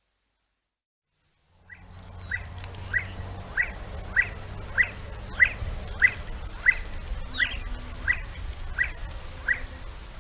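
A bird calling: a steady series of about a dozen short, rising chirps, roughly one every 0.6 seconds, over a low rumble. The calls start about a second and a half in and fade out near the end.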